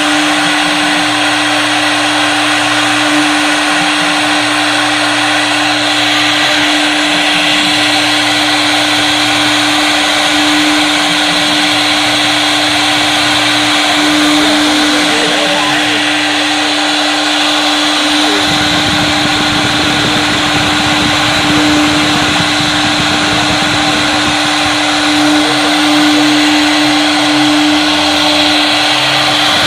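CNC wood router cutting wood: the spindle holds a steady whine over the noise of the bit in the wood, with a lower hum that switches on and off every second or two. About two thirds of the way through, the cutting noise turns heavier and rougher.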